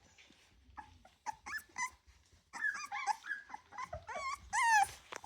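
Three-week-old Rottweiler puppies whimpering and squealing, several at once, in short high cries that bend up and down in pitch. The cries grow busier about halfway through and are loudest near the end.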